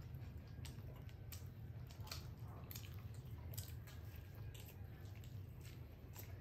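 People chewing and biting pizza: irregular wet mouth clicks and smacks, over a steady low hum.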